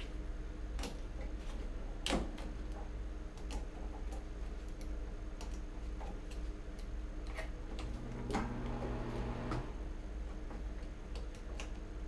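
Irregular small metallic clicks and scrapes of a hand tool working at the screws and metal strap of a wall light switch in its box, the sharpest about two seconds in, over a steady low hum.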